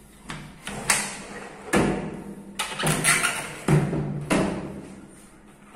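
A sliding window being unlatched and pushed open by hand: a string of about seven sharp clunks and knocks from the frame, each with a short ringing tail.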